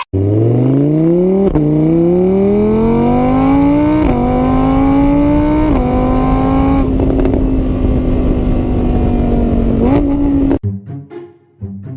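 Car engine accelerating through the gears: its pitch climbs, dips briefly at each of three shifts, then holds steady before cutting off suddenly near the end.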